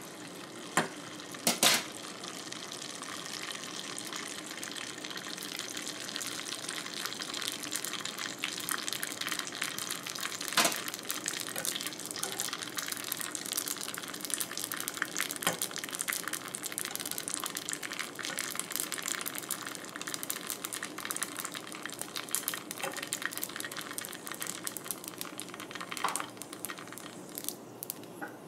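Pork rind pellets frying in hot oil in a small saucepan: a steady crackling sizzle full of tiny pops. A few sharp clicks of metal tongs against the pan stand out.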